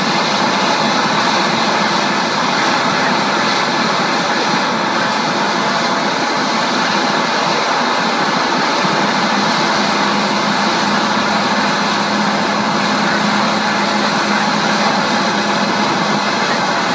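Boeing 787 Dreamliner taxiing on its jet engines at idle thrust: a steady rush of jet noise with a thin, steady high whine.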